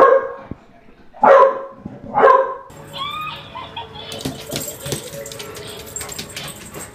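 A bulldog barking three times, short loud barks about a second apart in the first half. The barks give way to a quieter mix of thin gliding tones and hiss.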